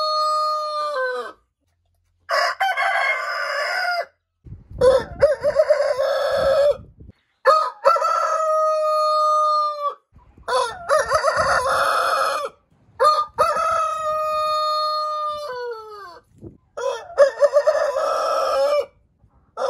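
Roosters crowing one after another, about seven crows, each a long held call that drops in pitch at the end. The crows are separated by short silences.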